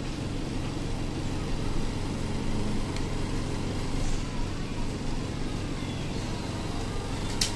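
Electric suction machine running with a steady low hum while a catheter clears a newborn's mouth and nose, with a sharp click near the end.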